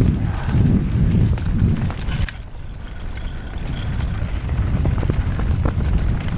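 Mountain bike descending a dirt trail: a continuous low rumble of wind buffeting the microphone and tyres rolling over the ground, with scattered sharp clicks and rattles from the bike.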